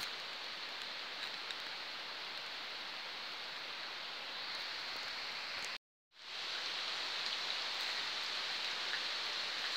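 Heavy rain pouring steadily, an even hiss with scattered drip ticks. It cuts out completely for a moment about six seconds in, then comes back slightly louder.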